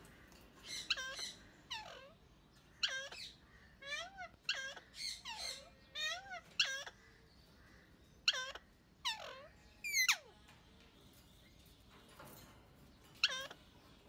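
Caged pair of Alexandrine parakeets calling: short, harsh, repeated notes in quick clusters, broken by pauses of a second or two, with one long falling call about ten seconds in.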